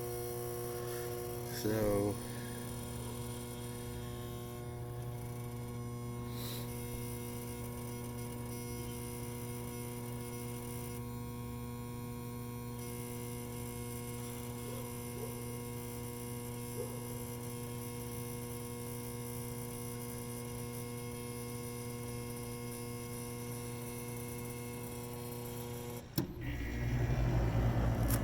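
Amana packaged HVAC unit giving a steady electrical hum with a buzzy stack of overtones while failing to make heat, a sound its owner says doesn't sound good. About 26 seconds in there is a click and a rising rushing noise starts.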